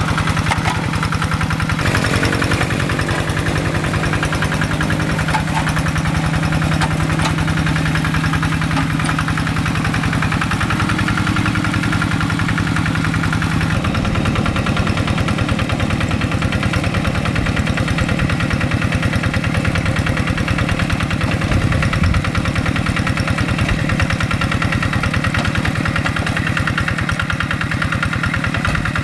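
Kubota single-cylinder diesel engine of a walking hand tractor running steadily with a fast, even chug as it pulls a plough through a wet rice paddy. Its note shifts about two seconds in and again about halfway through.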